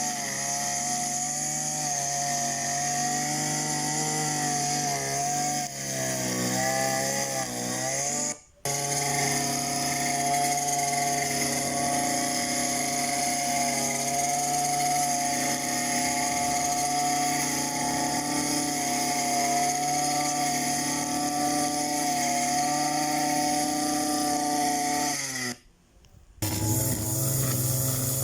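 Grass cutter engine running at a steady high buzz, its pitch wavering and dipping for a couple of seconds before cutting out briefly. It cuts out again near the end and comes back with a lower, steadier tone.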